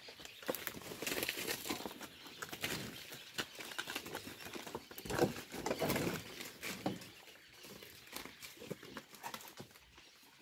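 Cows licking and eating salt at a trough, with irregular scrapes, knocks and hoof steps and a louder stretch about five seconds in.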